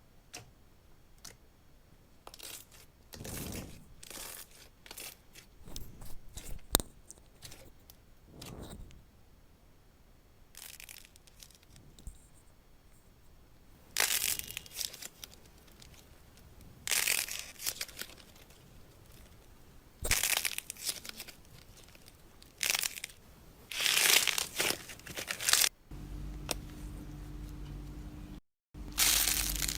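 Slime being squeezed, stretched and pulled, giving irregular bursts of crackling, tearing sounds. A steady low hum comes in near the end.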